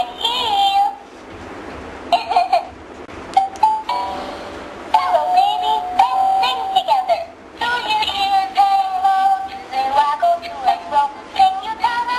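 Battery-powered plush peek-a-boo dog toy singing a song through its speaker in a high, childlike synthetic voice, holding notes and gliding between them with short breaks.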